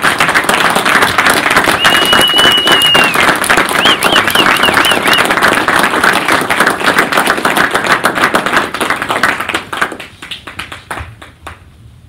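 Audience applauding. There is a held high whistle about two seconds in and a quick run of warbling whistles a couple of seconds later. The applause thins to a few scattered claps and stops near the end.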